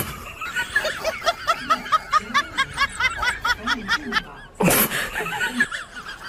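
A high-pitched laughing sound effect: a quick run of short 'ha' notes, about four a second. A short, loud burst of noise breaks in about four and a half seconds in.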